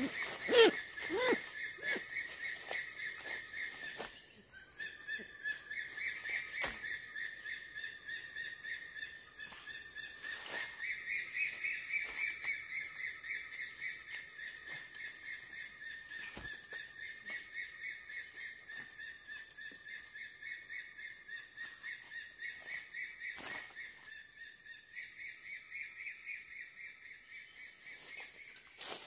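Outdoor forest ambience: a steady, high-pitched chorus of calling wildlife that pulses rhythmically throughout, with scattered light clicks and a louder short sound about half a second in.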